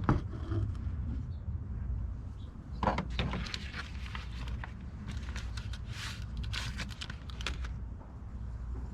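Light clicks and scraping from handling a hood strut and its metal retaining clip while it is pried off its ball mount, over a steady low rumble.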